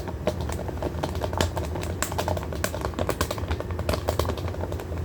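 Rapid, irregular clicking and tapping of a plastic tablet case being handled and worked on, over a steady low hum.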